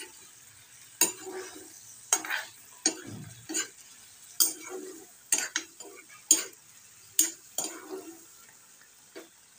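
Steel ladle stirring chicken curry in a black iron kadai: about a dozen irregular metal scrapes and knocks against the pan, roughly one a second. The gravy bubbles and sizzles faintly underneath.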